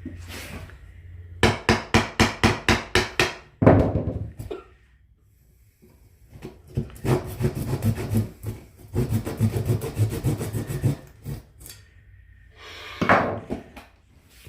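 Hand tools working wooden framing lumber. A run of about nine quick strokes at roughly four a second, then a loud knock, and after a short pause a longer run of rapid strokes.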